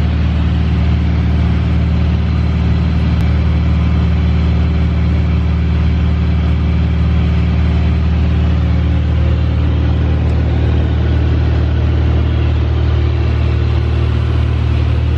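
Cabin drone of a 1961 Cessna 210A's six-cylinder Continental piston engine and propeller in cruise, loud and steady at one unchanging pitch, heard from inside the cabin.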